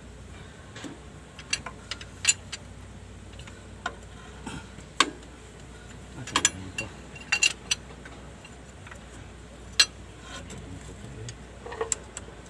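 Metal hand tools clinking and tapping on engine parts during injector removal: scattered sharp clicks at irregular intervals, the loudest about two, five and ten seconds in.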